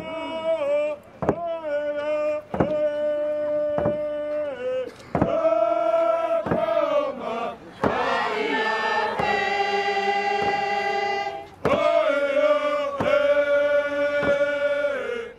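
Several voices singing a chant in long held notes that glide between pitches, over a slow, steady drum beat struck a little over a second apart.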